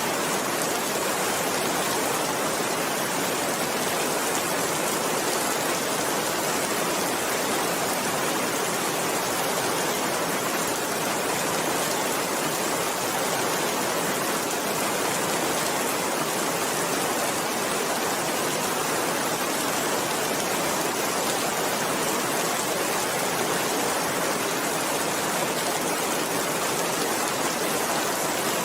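Steady rain falling, an even hiss of drops that keeps up without pause and with no thunder.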